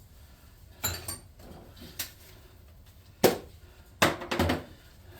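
Metal tools and parts being handled and set down on a workbench: a string of clinks and knocks, the loudest a little over three seconds in.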